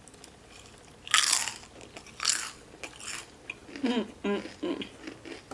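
Close-up eating sounds: two loud, short crunching bites, then a few brief pitched mouth or throat sounds while chewing.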